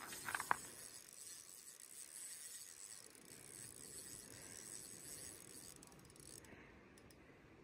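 Spinning fishing reel being wound in, a faint steady whir of the turning rotor and gears after a few clicks near the start. The winding stops about six and a half seconds in.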